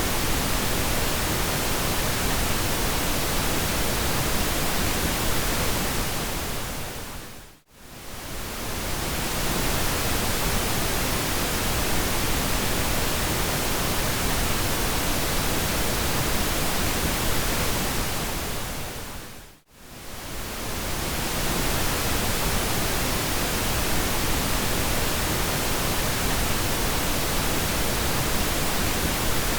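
Pink noise: a steady, even hiss across all pitches. It briefly fades out almost to silence and back in twice, about 8 and 20 seconds in.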